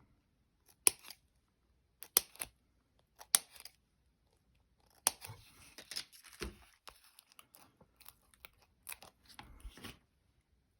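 Craft tape being cut and torn off: a handful of sharp snips spread over the first five seconds, then several seconds of tearing, crackling noise as it is pulled and peeled, stopping shortly before the end.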